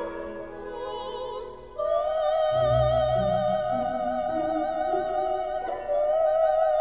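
Background classical music: an operatic voice holds long high notes with vibrato over a low accompaniment, with an audible breath about a second and a half in.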